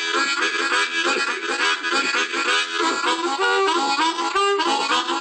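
Blues harp (harmonica) played cupped in both hands: a quick run of short notes and chords changing several times a second.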